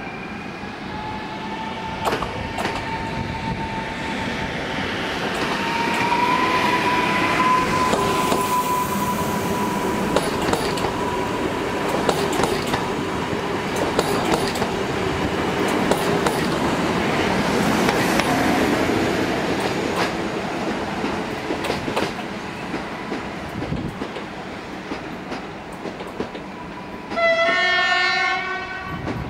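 Newag Impuls EN79 electric multiple unit pulling away and passing: its electric drive whine rises in pitch as it accelerates, with wheels clicking over rail joints as the cars go by. Near the end comes one horn blast of about two seconds.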